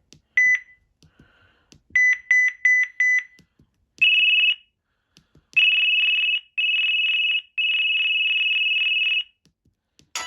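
LG VX8300 flip phone beeping through its speaker: one short beep, then five quick beeps at the same pitch, then a higher, rapidly pulsing electronic tone in four stretches, the last the longest. A musical ringtone starts right at the end.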